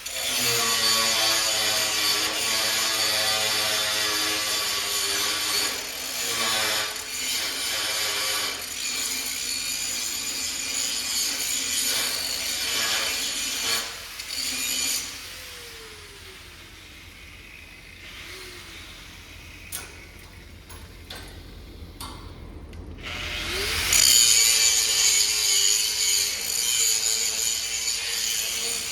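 A 5-inch angle grinder grinding the edge of a steel plate square: a steady motor whine under a dense, hissing grind of the disc on metal. About halfway through the grinding stops and the whine falls in pitch. A few seconds before the end it rises again and the grinding resumes, loud.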